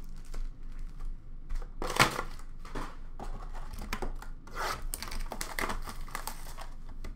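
Cardboard blaster boxes of hockey cards being torn open and the wrapped card packs pulled out and handled: irregular crinkling, rustling and tearing, with the loudest sharp crackle about two seconds in.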